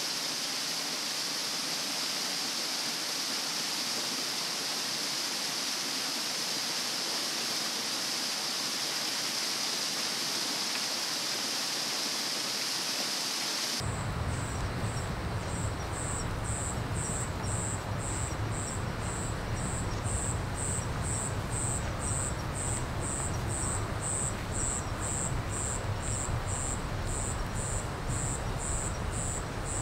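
Forest ambience of insects. At first there is a steady, high, dense drone over a wash of noise. About 14 s in it switches abruptly to a different ambience: a high insect call pulsing about twice a second over a low rumble.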